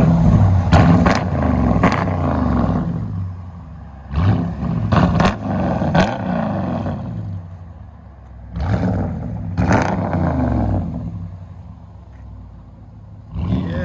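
Dodge Durango R/T 5.7L HEMI V8 through Black Widow Neighbor Hater mufflers with the rear resonators deleted, revved in quick throttle blips. There are three groups of blips, each falling back to a loud idle between them.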